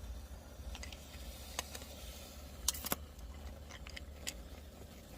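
Zippo Typhoon windproof match burning after being struck, with a few scattered small clicks and crackles over a low steady rumble.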